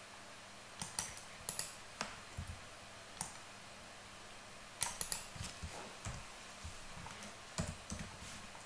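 Scattered clicks of a computer keyboard and mouse as shortcuts and selections are made: a few around one and two seconds in, a quick cluster about five seconds in, and another pair near the end.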